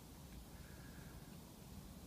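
Near silence: faint background hiss and low rumble, with a faint high steady tone briefly in the middle.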